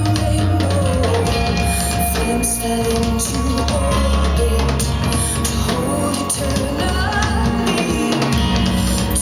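A song with singing, drums and guitar, with strong bass, played back through Wharfedale Crystal 40 hi-fi speakers.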